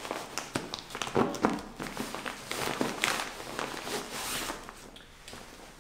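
Backpack fabric rustling and brushing as an item is pushed into the front pocket by hand, with scattered light clicks and scrapes that fade toward the end.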